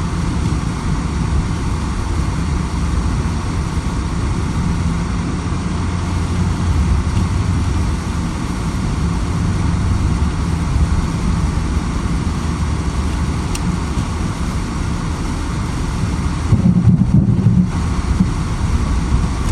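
Car driving on snowy roads, heard from inside the cabin: a steady low rumble of engine and tyres with road hiss, growing louder for a moment near the end.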